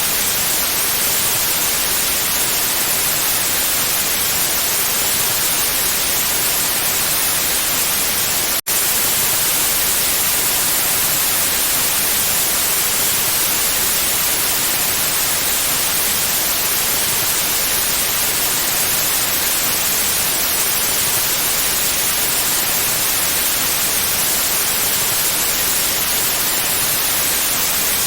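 Pure white noise: a steady, even hiss, strongest in the treble, with a split-second gap about eight seconds in.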